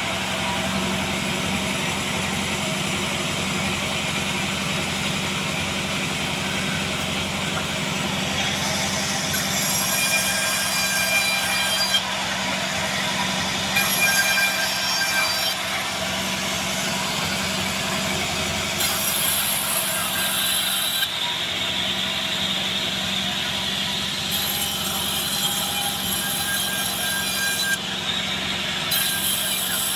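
Sawmill band saw running steadily as it cuts through a log of Bayur wood: a continuous mechanical drone under a high cutting hiss that comes and goes every few seconds.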